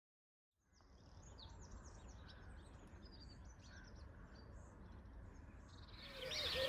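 Outdoor ambience fading in from silence: small birds chirping and singing over a low rumble. It grows louder about six seconds in.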